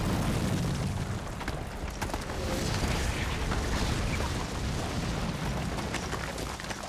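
Aftermath of a rock blast: a heavy rumble of shattered rock collapsing, with many stones clattering and pattering down, slowly fading.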